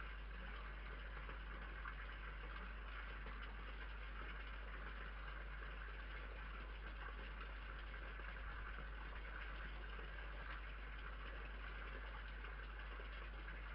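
Steady hiss over a low electrical hum, unchanging throughout: the noise floor of a security camera's built-in microphone, with no distinct eating sounds standing out.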